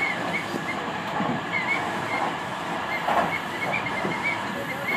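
Running noise of a Tobu 50000 series electric train at speed, heard from inside the car: a steady rumble of wheels on rail with scattered short, high squeaks.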